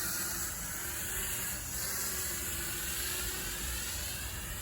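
DEERC D20 mini drone's propellers whirring in flight, a thin whine that glides up and down in pitch as the motors speed up and slow down, over wind rumbling on the microphone.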